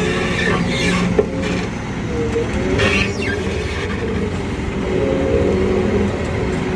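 Heavy vehicle running and moving under load, with a steady mechanical whine and a few brief rattles.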